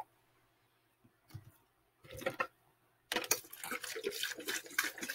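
Malibu coconut rum poured from its bottle into a plastic cup. The liquid splashes in steadily for about two seconds, starting about three seconds in, after a brief handling noise.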